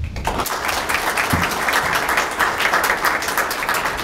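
Audience applauding, many hands clapping steadily from the first moment.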